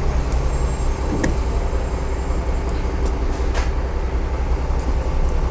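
Steady low rumble of background vehicle noise, with a few faint light clicks.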